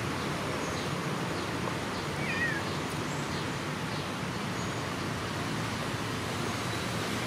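A kitten gives one short, high, wavering mew about two seconds in, over a steady background hiss.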